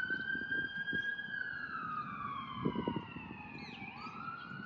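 A siren wailing at a fair distance: one slow fall in pitch, then a rise again near the end.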